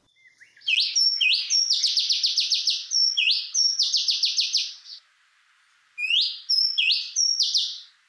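Oriental magpie robin (male) singing its typical song: quick runs of sharp, rapidly repeated notes. The song pauses about five seconds in and resumes a second later with a phrase of upward-sweeping notes.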